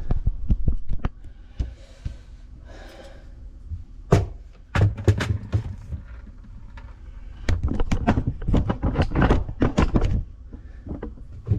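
Hand work on plumbing fittings and tools: a run of knocks, clunks and clicks in three bunches, with a brief hiss-like noise between the first two.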